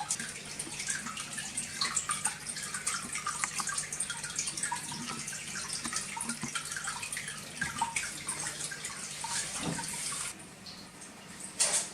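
Water trickling and splashing from a small aquarium waterfall into the tank's pool, driven by a filter pump, with a faint steady pump hum under it. The splashing gets quieter about ten seconds in, with one brief louder splash near the end.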